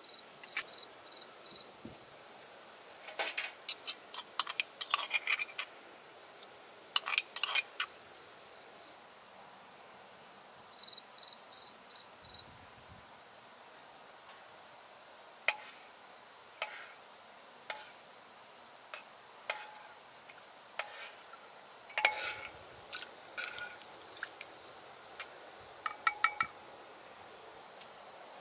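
Crickets chirping steadily, with short pulsed trills now and then, under a scattering of clinks and taps from glass seasoning jars and utensils being handled, coming in small clusters.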